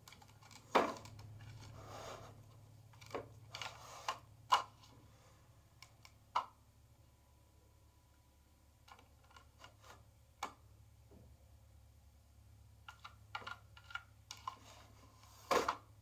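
Irregular clicks, taps and knocks of hard plastic as cats paw at a Trixie Dog Activity puzzle toy, moving its blue plastic cones and clear treat tower. The clicks come in clusters, with the loudest knocks near the start and near the end.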